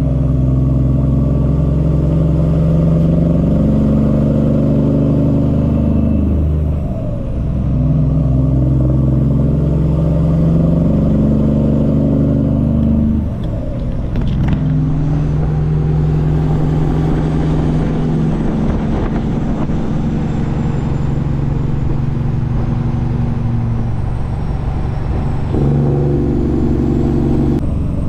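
Cummins ISX diesel in a Peterbilt 379 truck running under way. The engine note breaks and changes pitch at gear shifts about seven and thirteen seconds in, and steps up again near the end.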